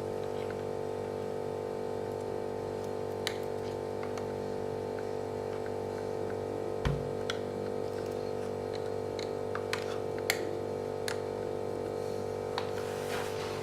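Scattered small clicks and taps, about a dozen, irregularly spaced and one with a dull thud about halfway through, like tools and plastic laptop parts being handled during a Lenovo G510 teardown, over a steady hum.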